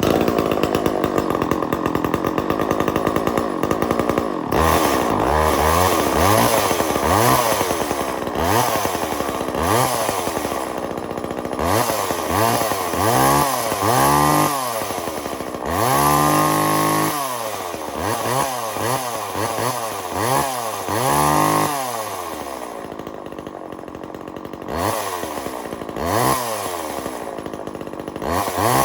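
Homelite two-stroke chainsaw running, held at a steady high speed for a few seconds and then revved up and down repeatedly, about once a second, with a spell at a lower idle past the middle before more revving near the end.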